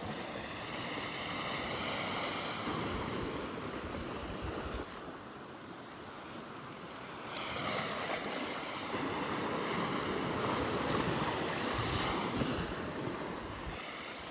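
Small surf breaking and washing up a sandy beach, with waves of 1 to 2 feet. It swells twice, once in the first few seconds and again, louder, from about seven seconds in.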